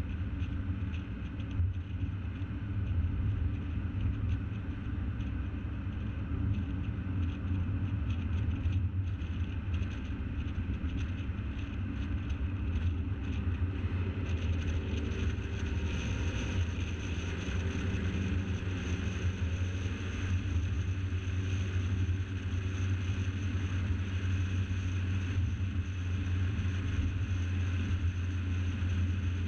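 A car driving at road speed, heard from a camera on its bonnet: a steady low rumble of engine, tyres and wind. The hiss in the upper range grows a little brighter about halfway through.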